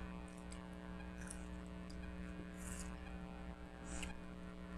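Quiet eating at a table: a few short, soft mouth sounds of chewing and slurping, over a steady electrical hum.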